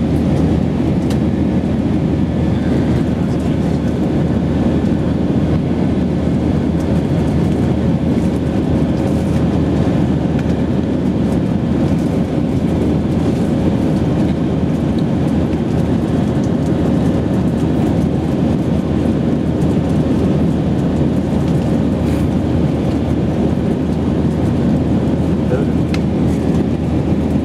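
Steady engine and airflow noise inside a jet airliner's cabin during the climb after takeoff, with a thin steady tone running through it.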